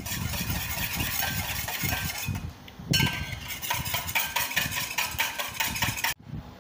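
Wire balloon whisk beating egg whites in a stainless steel bowl: a rapid, steady clatter of wire against metal, cutting off suddenly near the end.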